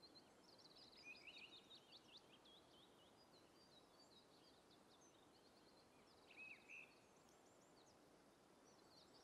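Near silence with faint songbirds chirping and twittering, short high calls and trills throughout, and a couple of slightly louder calls about six and a half seconds in.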